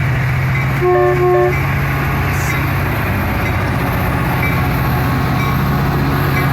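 Train horn giving two short blasts about a second in, over the steady low drone of a locomotive's engine running.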